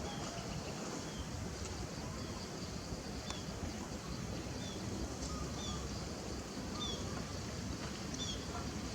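Outdoor background noise with a steady low rumble, over which a short, high chirp repeats about once a second, like a small bird or insect calling.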